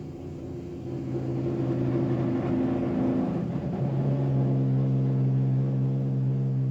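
Baxi Nuvola 3 Comfort 320 Fi gas boiler running with a loud, steady droning hum that grows louder and shifts to a lower, stronger tone about four seconds in. This is the noisy running that comes before the burner goes out with error E12.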